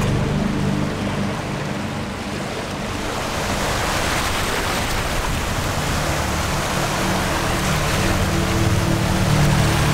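Sea waves washing onto the shore, the surf noise swelling a few seconds in, under sustained low notes of soft background music.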